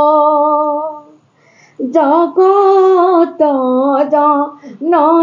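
A woman singing an Assamese dihanaam, a devotional chant to the goddess Durga. She holds one long steady note that ends about a second in, pauses briefly, then takes up the melody again.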